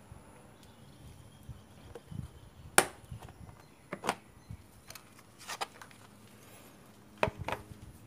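Hard plastic clicks and knocks as the clipped-on lid of a car's engine-bay fuse and relay box is unlatched and lifted off, the sharpest snap about three seconds in.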